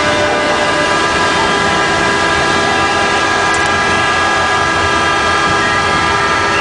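Several ship horns sounding together in one long, unbroken blast of many mixed tones, the customary salute as a jack-up drilling rig is launched. A rushing wash of water runs underneath as the rig's hull moves into the sea.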